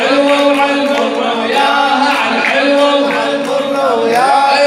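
A male radood sings a Shia devotional praise chant into a microphone. The long held notes bend up and down in pitch.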